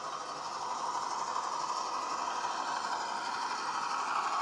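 Sound-fitted model of an Irish 181 class diesel locomotive: the DCC sound decoder's diesel engine sound plays through a small 30x17 mm speaker inside the model. It is steady and grows a little louder near the end as the model approaches.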